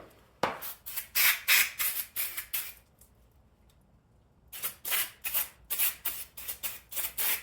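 Aerosol carburetor cleaner sprayed in a rapid series of short hissing bursts, with a pause about halfway, flushing out a disassembled lawn mower carburetor.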